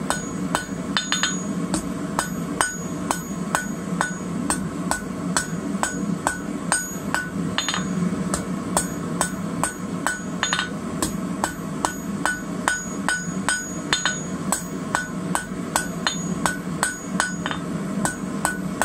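Hand hammer striking red-hot rebar on a steel anvil in steady blows, about two to three a second, each with a short metallic ring. A steady low hum runs underneath.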